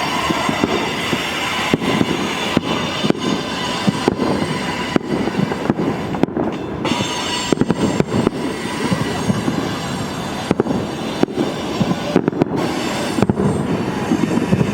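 Fireworks cracking and banging again and again over the continuous rumble of a train on the rails, its wheels squeaking.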